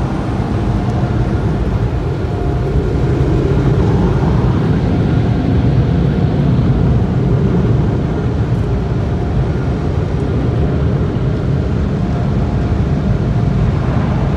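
Car wash tunnel's air dryer blowers running, a loud steady rush of air with a faint whine, heard from inside the car. It eases slightly about eight seconds in as the car leaves the tunnel.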